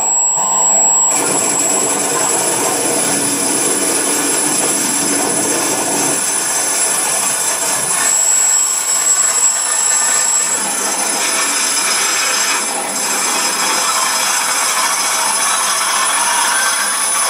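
Live electronic noise music: a loud, dense screeching wall of noise with steady piercing high tones, its texture shifting several times.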